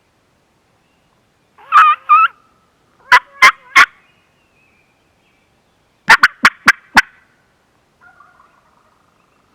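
Turkey call worked by a hunter, giving loud hen yelps in short runs: two notes, then three, then five quick ones, to pull a gobbler toward the ridge.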